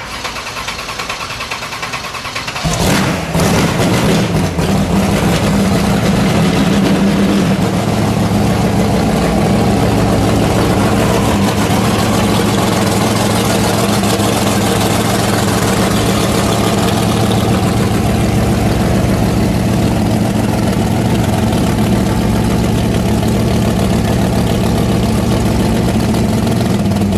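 A 426 Hemi V8 in a 1966 Plymouth drag station wagon cranking on the starter and catching about three seconds in. It revs briefly a few times, then settles into a steady, loud idle.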